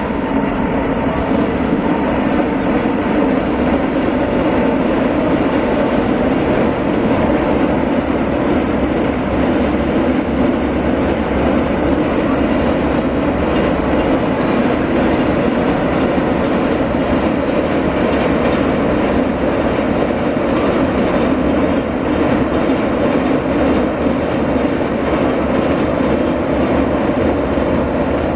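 Container freight train hauled by a WAG9 electric locomotive rolling across a steel girder bridge: a steady, loud rumble and clatter of wagon wheels on the rails, with a regular clicking of wheels joining in from about halfway.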